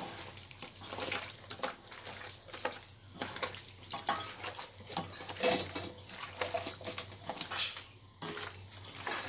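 Hands mixing raw chicken into a wet spice marinade in a bowl: an irregular run of squishing sounds.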